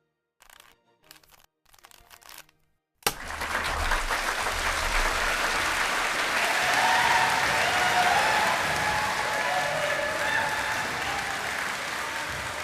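A few short, quiet clicking bursts, then about three seconds in a crowd suddenly starts applauding and cheering, with whistles over the clapping, tailing off near the end.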